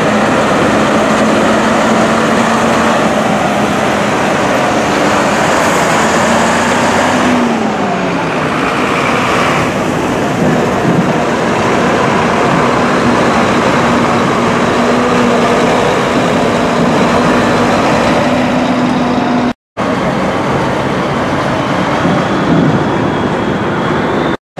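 Heavy diesel trucks driving slowly past, engines running steadily, with a drop in engine pitch about seven seconds in. The sound breaks off for an instant twice near the end.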